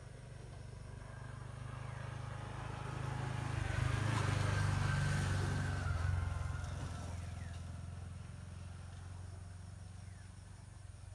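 A motor vehicle passing by: its engine and road noise swell over a few seconds, peak near the middle, then slowly fade away.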